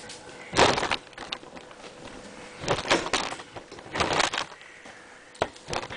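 A kitten batting and pouncing on a crinkly plastic toy: short bursts of crinkling rustle, about a second in, near three seconds, near four seconds and once more briefly past five.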